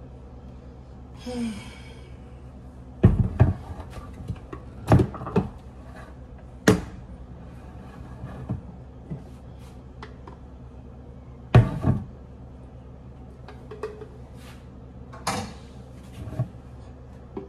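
Scattered knocks and clunks of a blender jar and kitchenware being handled and set down during washing up, with a short hiss about a second and a half in. Underneath runs a steady low hum.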